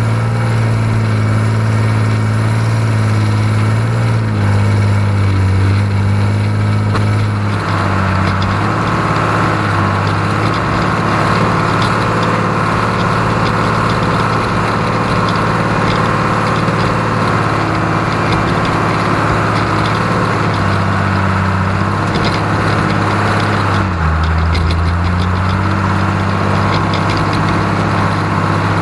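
John Deere 3130 LS tractor's six-cylinder diesel engine running steadily, its pitch shifting a few times as engine speed changes. A harsher, brighter note sits over it for most of the middle of the stretch.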